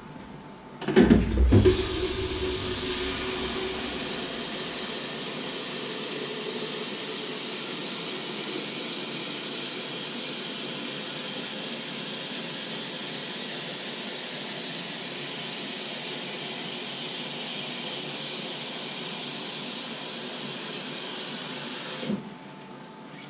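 Kitchen tap turned on about a second in, water splashing hard at first and then running in a steady hiss into a plastic measuring jug in the sink; turned off suddenly near the end.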